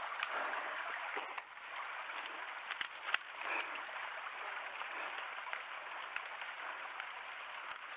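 Dry grass and brush rustling steadily as someone pushes through thick undergrowth, with a few light snaps and clicks.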